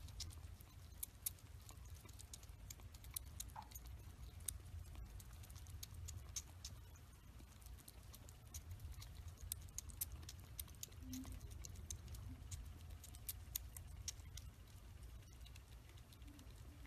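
Kitten lapping milk from a metal spoon: faint, irregular wet clicks of its tongue, over a low steady hum.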